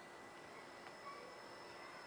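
Near silence: quiet outdoor background hiss with a faint steady high tone, and one faint short high note about a second in.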